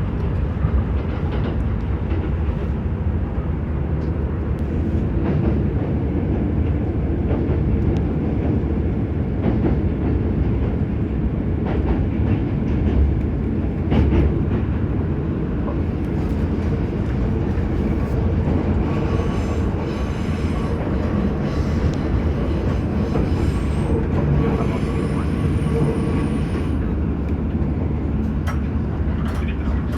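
Kintetsu electric train running, heard from inside the passenger car: a steady low rumble with rail-joint clicks now and then. A faint high whine comes in for several seconds past the middle.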